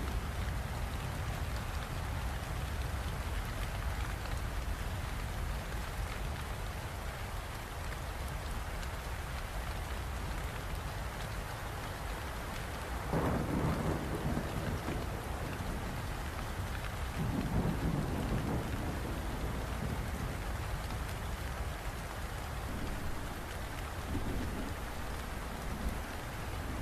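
Steady rain falling, with low rolls of thunder swelling up about halfway through, again a few seconds later, and once more near the end.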